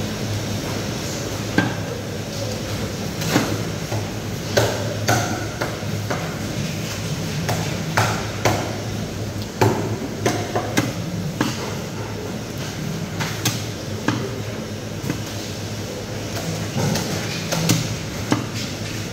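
Cleaver chopping a threadfin into steaks on a wooden chopping block: sharp, irregular knocks, roughly one every second or two, over a steady background hum.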